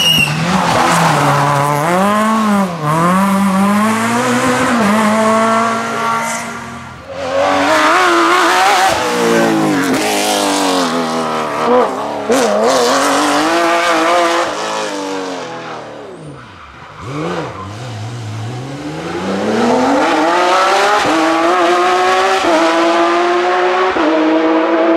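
Rally cars passing one after another at full throttle, engines revving up and dropping back through gear changes. First a Citroën Saxo rally car, then a Porsche 911 with its flat-six, with a sharp pop midway through its pass. Near the end a third car is heard climbing through the revs as it approaches.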